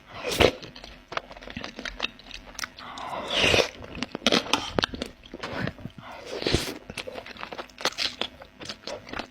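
Close-up eating sounds of a person chewing seblak with beef tongue: many small wet mouth clicks and crunches, with three louder, longer mouth sounds about half a second, three and a half and six and a half seconds in.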